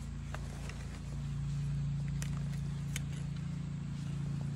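A steady low mechanical hum, a little louder from about a second in, with a few faint clicks over it.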